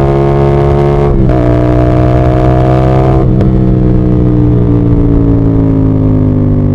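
CF Moto 450SR-S parallel-twin motorcycle engine pulling under load, with two brief breaks in the engine note about one and three seconds in as gears change, then the revs easing down gradually toward the end.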